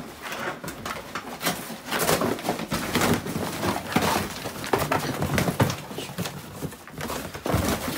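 Cardboard boxes crunching, rustling and tearing as a dog bites and yanks at them, with scuffling on a carpet, in a fast run of irregular sharp crackles.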